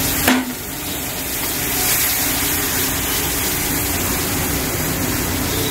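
Ghee-roasted wheat flour for atta halwa sizzling and bubbling in a kadai just after hot sugar-water has been poured in, while it is stirred with a silicone spatula. A brief clink comes near the start, over a faint steady hum.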